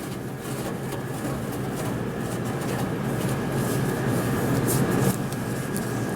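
Cloth rubbing over the inside of an oven cavity in irregular wiping strokes, over a steady mechanical hum.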